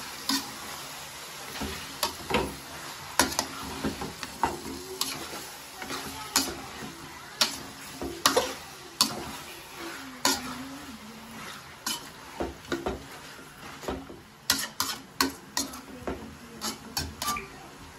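A perforated metal spoon stirring and scraping chicken pieces and cucumber chunks in a large aluminium kadai: irregular clanks and scrapes of metal on the pan over a steady sizzle. The chicken is cooking down in hot oil until its own water dries off. Near the end the knocks come quicker.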